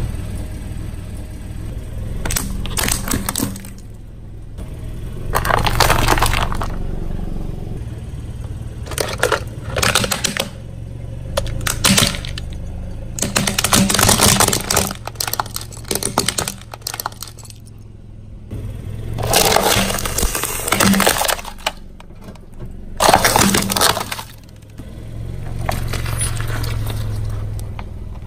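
A car tyre rolling slowly over objects and crushing them one after another, including a plastic toy, with repeated bursts of cracking and crunching a second or so long. A steady low hum from the car's engine runs underneath.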